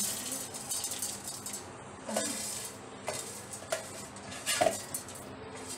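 A steel plate knocking and clinking against a steel mixer-grinder jar as dry-roasted whole spices are tipped and scraped into it: a few separate light knocks about a second apart.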